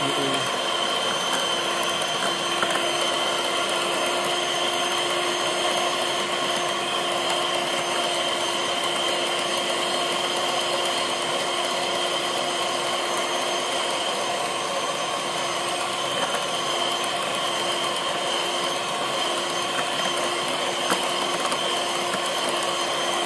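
Miyako electric hand mixer running steadily at one even pitch, its beaters whisking cake batter in a stainless steel bowl.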